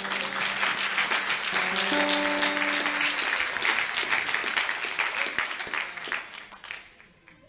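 Congregation clapping in applause, with a few sustained instrument notes held underneath during the first three seconds; the clapping dies away near the end.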